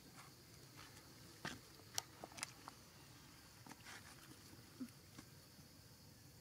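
Baby monkeys eating juicy red dragon fruit: mostly quiet, with about half a dozen short wet clicks and smacks of chewing and biting into the flesh, the sharpest about two seconds in.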